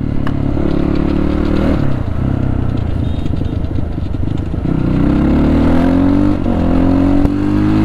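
Motorcycle engine running under way, its pitch climbing as it accelerates, with a short drop about six and a half seconds in before it climbs again.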